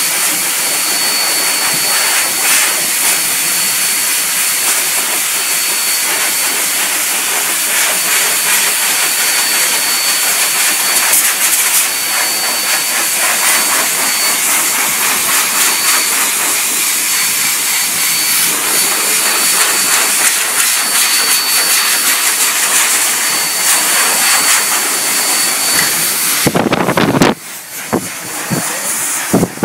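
An electric motor blows air through a hose held against a thick dog coat: a steady rush of air with a thin high whine on top. Near the end it swells briefly, then drops away.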